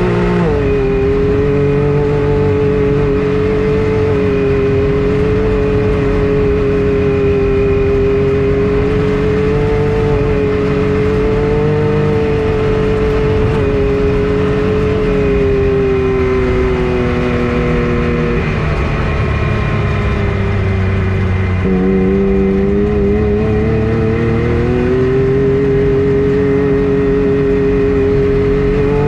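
A vehicle's engine and drivetrain running at a steady cruising speed with a steady pitched whine. About two-thirds of the way in the pitch sags as it slows, then climbs back as it speeds up again.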